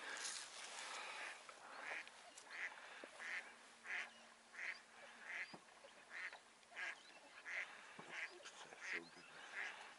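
A duck quacking, faint short calls repeated steadily about every half second.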